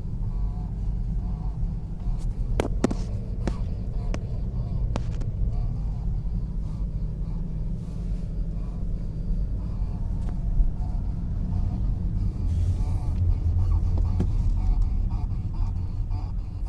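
A BMW's steering creaking as the wheel is turned, with a few sharp clicks early on, over a steady low rumble from the car.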